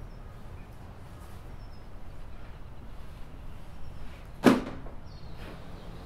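Low room tone with a single sharp knock or thud about four and a half seconds in.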